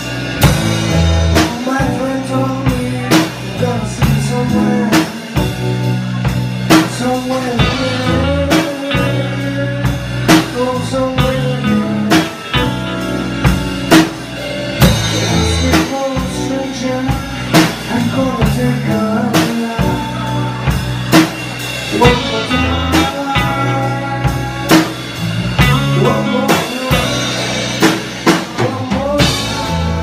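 A live band playing a song: a drum kit keeps a steady beat under electric bass, acoustic and electric guitars and keyboard.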